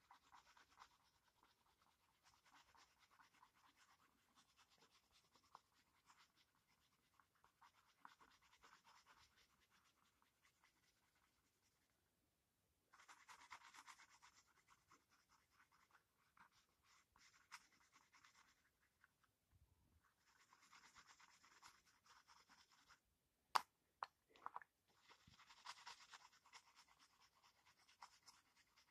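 Faint scratching of a colouring pencil shading on paper in quick, dense strokes. It comes in several spells with short pauses, and two sharp clicks fall about three-quarters of the way through.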